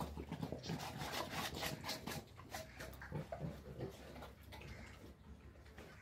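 A pig eating wet feed from a bowl, with a quick, irregular run of short grunts and mouth sounds that thins out over the last couple of seconds.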